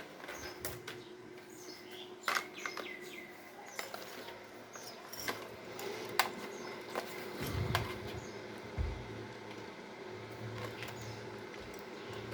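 Scattered clicks and knocks from handling the equipment while the audio lead is connected, with faint bird chirps in the background and a low hum that comes and goes in the second half.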